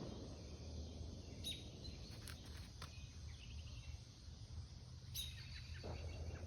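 Faint outdoor ambience: a steady low rumble, with two short high chirps from a bird or insect about a second and a half in and again near the end, and a few faint ticks between them.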